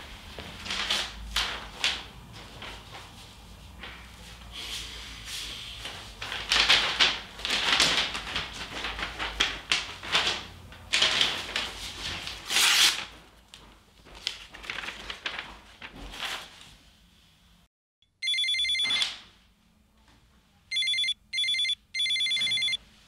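Crackly rustling of packaging being handled for several seconds. Then a smartphone rings with a trilling electronic ringtone: one ring, a pause, then three short rings.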